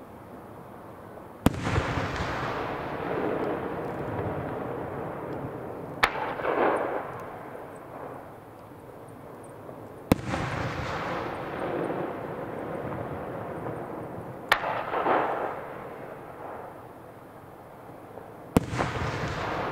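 Aerial firework shells bursting overhead: five sharp booms about four seconds apart. Each is followed by a long rolling echo and rumble that fades before the next.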